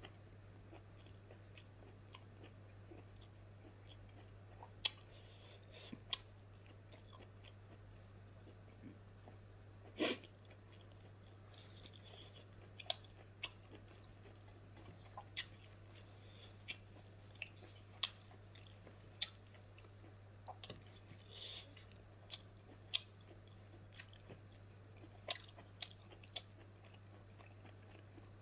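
Close-up mouth sounds of a person chewing smoked pork slowly with lips closed: scattered soft smacks and clicks every second or two. A faint steady low hum runs underneath.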